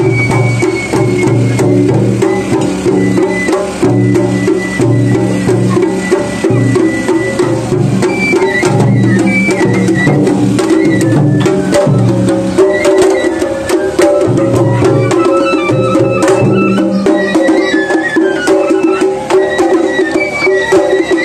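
Japanese festival float music (matsuri-bayashi): taiko drums, a large barrel drum and smaller rope-tensioned drums, beating a steady rhythm, with a high flute melody playing over them.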